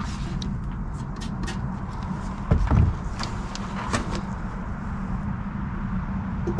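Scattered clicks and light knocks of parts and a drill being handled and set up for drilling a burner tube, with one heavier thump about two and a half seconds in, over a steady low hum.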